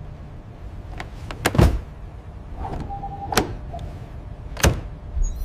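Aluminium carry case being shut and locked: a series of sharp metallic clicks and snaps from its lid and latches, the heaviest about one and a half seconds in, with a short electronic beep from its fingerprint lock near three seconds in.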